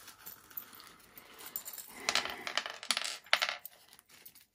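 Small metal parts clinking and rattling against each other and the bench, in two short bursts about two seconds in and again just after three seconds, with lighter ticks of handling between.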